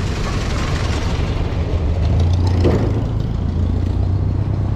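Road traffic heard from a moving bicycle, with a vehicle's low engine rumble growing louder about two seconds in over a steady haze of wind and road noise on the camera's microphone.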